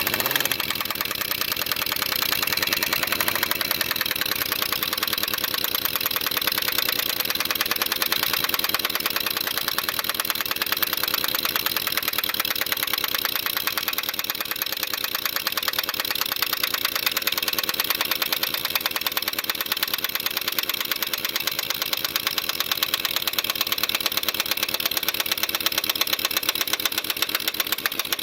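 Piston air compressor running steadily, a rapid even chugging that does not let up, as it refills its tank after heavy use by an air impact wrench.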